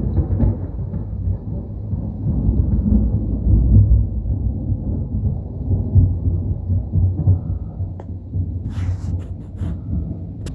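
Thunder rumbling long and low after a lightning bolt, slowly fading over the last few seconds, with a few sharp clicks near the end.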